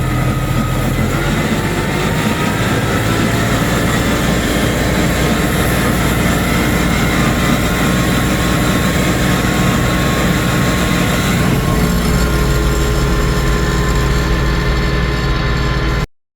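A motor vehicle engine running steadily, with a low hum. Its tone shifts slightly about a second in and again near twelve seconds, and it cuts off abruptly at the end.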